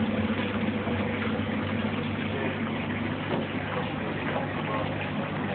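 Aquarium filtration running steadily: water bubbling and splashing over the low, even hum of the pump motor.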